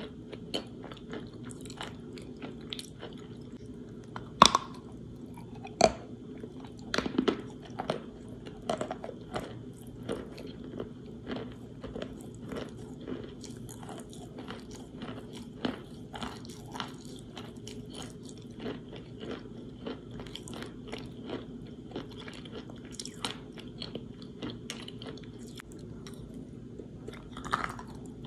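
Close-up chewing of chunks of chalk soaked in water: irregular moist crunches throughout, with a few louder bites about four and six seconds in and again near the end.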